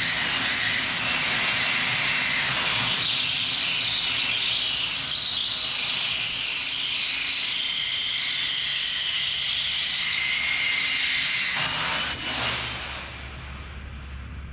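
Cordless drill boring a 5/16-inch hole through 1-inch square steel tubing, running steadily with a high whine, then stopping about twelve seconds in.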